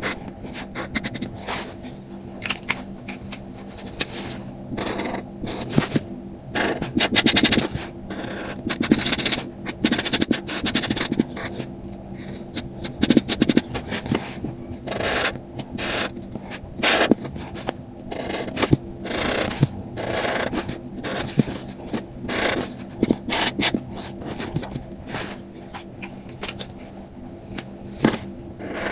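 Paper card being worked by hand: irregular short scratching and scraping strokes, some brief and some drawn out over about a second. A faint steady hum runs underneath.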